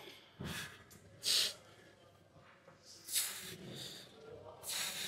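A man breathing hard through a strenuous lifting set, with four sharp, noisy exhales at uneven gaps. The loudest comes a little over a second in.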